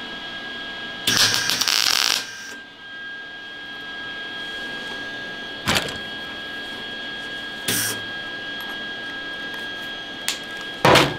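MIG welder arc crackling as spot welds are laid on the sheet-steel rear quarter panel of a 1966 Impala. A loud burst of about a second comes near the start, then shorter blips later, the loudest a brief one near the end.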